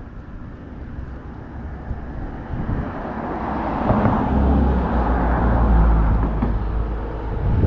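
Road traffic rumbling past, a vehicle's sound building from about three seconds in into a heavy low rumble.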